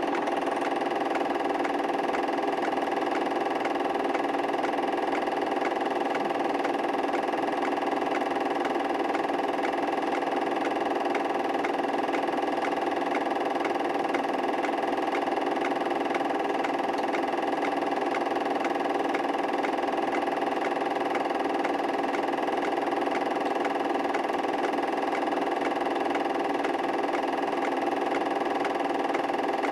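A steady mechanical hum made of several held tones, unchanging in level and pitch throughout.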